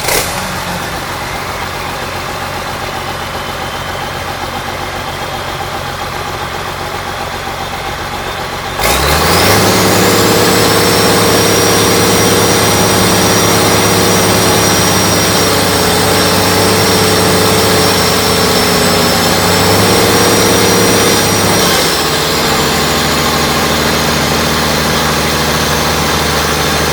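Freshly overhauled Cummins 6D102 inline-six turbo diesel running in a wheel loader. It runs steadily, then about nine seconds in it is revved up and held there with a high whine over it, and drops back to a lower speed near the end.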